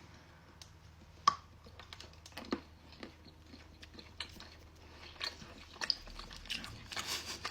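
A person biting into and chewing an individually wrapped pistachio praline: faint, scattered small clicks and crackles, with a sharper click about a second in.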